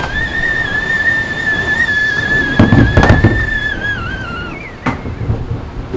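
A high, steady whistling tone that wavers slightly, then drops in pitch and stops about four and a half seconds in, with a few heavy thumps about three seconds in and a sharp knock just before five seconds.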